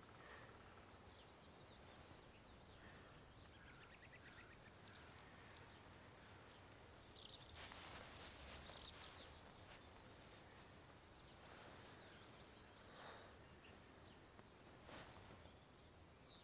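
Near silence: faint woodland ambience with a few soft bird chirps and brief rustling about halfway through.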